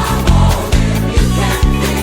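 Upbeat gospel praise music: a prominent bass guitar line under a steady drum beat, with a full band.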